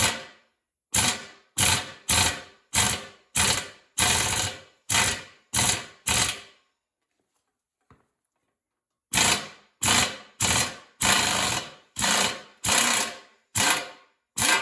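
Impact wrench hammering in short bursts, driving a splined removal tool to unscrew a stubborn bottom bracket cup from a bicycle frame. About nine bursts come in quick succession, then a pause of a couple of seconds, then about nine more.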